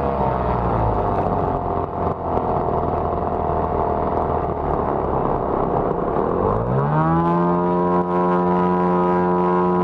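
Lazair ultralight's twin engines and propellers: at the start the throttle is pulled back and the pitch drops to a lower, rougher-running speed, then at about six and a half seconds the engines are run back up to a steady high pitch.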